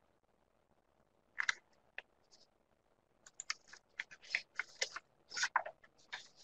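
Faint clicks and taps from a computer keyboard and mouse: a couple of single clicks about a second and a half and two seconds in, then an irregular flurry of taps for about three seconds.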